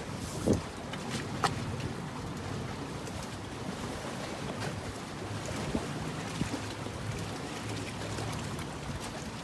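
Waterside ambience of wind on the microphone and lapping water with a steady low hum. A soft thump about half a second in as a bait is set down on the wooden rail, then a sharp click a second later.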